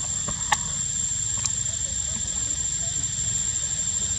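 Steady, high-pitched insect drone, with a few short sharp clicks, the loudest about half a second in and another about a second later.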